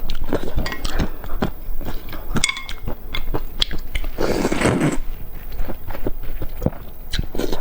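A person biting and chewing eggs close to the microphone, in irregular wet smacks and clicks, with a longer, louder chewing sound about four seconds in.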